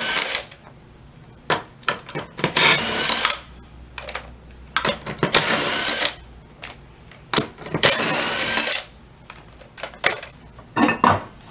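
Cordless power driver with a socket spinning the lug nuts off a golf cart wheel: four short runs of under a second each, about three seconds apart. Between the runs come clicks and clatter of the loosened nuts and the socket.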